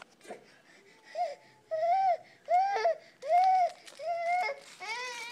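Infant crying in about six short wails, each rising and falling in pitch, starting about a second in and coming roughly once a second.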